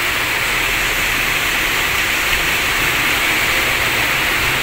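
Steady, fairly loud hiss of rushing air, unchanging throughout, with no knocks or clicks.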